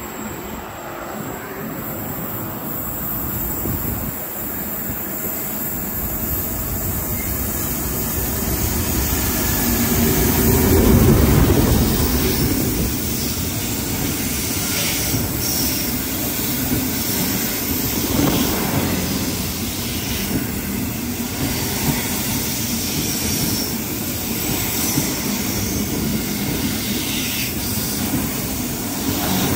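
Container freight train running through the station close by, its wagons rolling past with a steady rumble and occasional sharp clicks from the wheels. The sound builds and is loudest about eleven seconds in.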